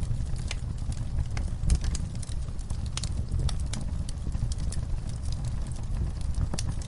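Wood logs burning in a fireplace: a steady low rumble of the flames with irregular sharp crackles and pops from the wood.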